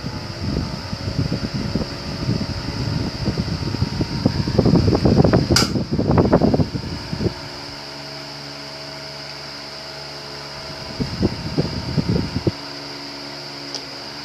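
Mallory electric fan running, with a steady motor hum and a thin high whine. Irregular low rumbling bursts come and go, over the first half and again near the end, and there is one sharp click about five and a half seconds in.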